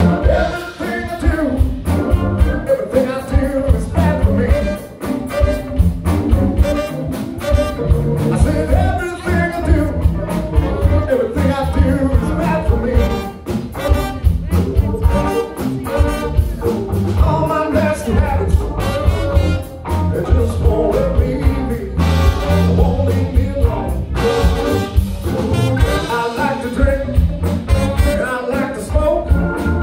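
Live rock band with a horn section playing a song: a male singer over electric guitar, drums, trumpet and saxophone, with a steady beat throughout.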